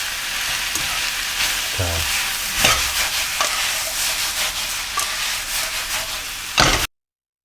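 Food sizzling in a hot frying pan as it is stir-fried, with the utensil scraping and clicking against the pan now and then. The sizzle cuts off suddenly near the end.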